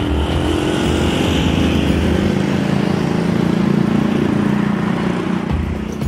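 Engine of road-construction machinery or traffic running, a steady hum that grows a little stronger in the middle and eases near the end.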